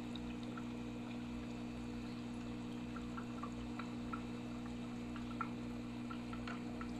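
Faint water trickling through an aquarium siphon hose over a steady low hum, with a few small drips about halfway through, as unfertilized angelfish eggs are sucked off the tank floor.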